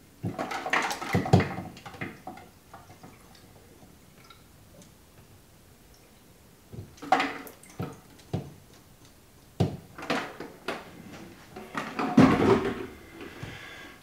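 Iced water poured from a kettle into an open copper pipe. It comes as three short bouts of splashing and clattering with sharp knocks of the kettle and ice against the pipe, quiet between them, the loudest bout near the end.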